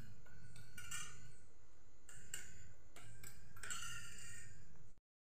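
Metal utensils clinking and scraping against steel cookware: several separate light knocks, some with a short ring, over a steady low rumble. The sound cuts off suddenly near the end.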